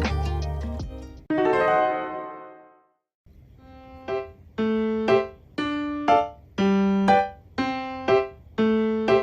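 Background piano music: one piece ends on a chord that fades out, and after a short silence a light keyboard tune of short chords, about one a second, begins.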